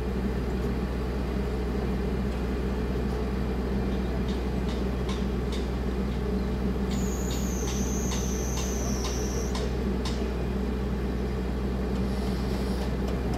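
Steady low machine hum with no change in level. In the middle come light ticks about twice a second, and for a couple of seconds a thin high whine sounds over them.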